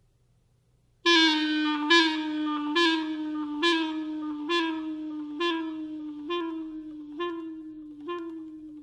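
After about a second of near silence, a clarinet plays a single mid-range note, re-accented about once a second, nine times, each attack a little softer than the last.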